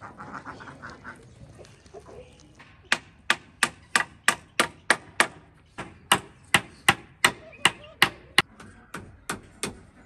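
Hammering: sharp, evenly spaced knocks, about three a second, starting about three seconds in.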